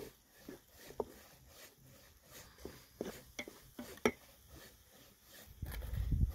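Wooden spoon stirring a steaming metal pot of vegetable sauce, with scattered light knocks and scrapes against the pot's side. A low rumble comes in near the end.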